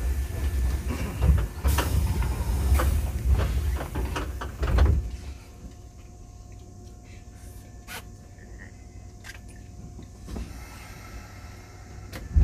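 Inside a Keisei 3500 series commuter train standing at a station: for about five seconds there is low rumbling with knocks and clatter. Then it settles to a quieter steady hum with a few single clicks.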